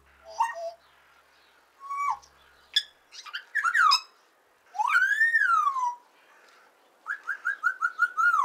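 Green-winged macaw calls: several loud, separate calls that rise and fall in pitch, one long arched call about halfway through, then a quick run of short repeated notes near the end.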